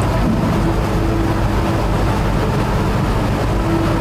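Steady low rumble and hum of background noise, with a faint higher tone coming and going.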